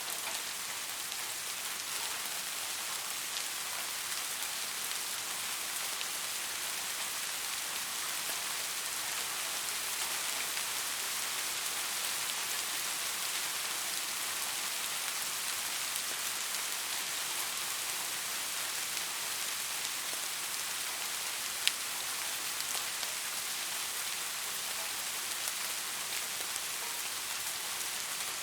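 Steady rain falling, an even hiss with scattered drops striking a surface, and one sharper drop tick about two-thirds of the way through.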